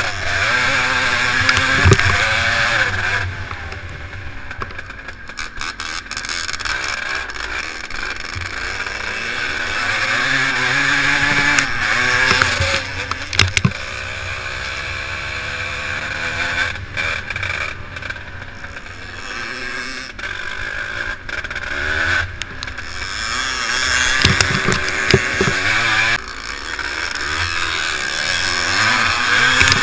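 A vintage motocross bike's engine revving hard and easing off over and over as it is ridden across a rough field, its pitch rising and falling with each burst of throttle.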